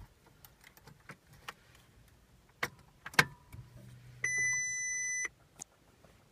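A few light clicks and two sharp knocks, then a steady high electronic tone for about a second that cuts off suddenly, followed by one more click.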